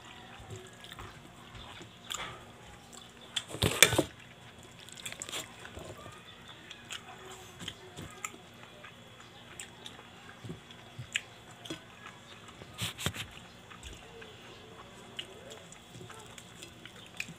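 A person eating rice by hand: chewing, with small clicks and taps of fingers and food against a plate. There are louder bursts of handling noise about four seconds in and again about thirteen seconds in.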